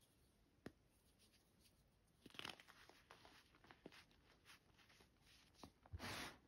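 Reformed gym chalk blocks being crushed and crumbled in the hands: scattered faint crackles, a crunch about two seconds in, and a louder crunch near the end.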